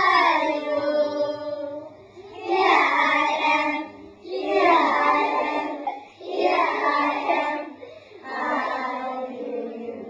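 A group of children singing together in a series of short phrases, each about two seconds long, with brief breaks between them.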